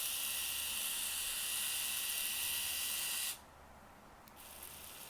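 Braun epilator's small electric motor running steadily with its rotating tweezer head, a high-pitched buzz, switched off suddenly about three seconds in. This is a test run after a worn plastic drive gear was fixed, with the head turning again.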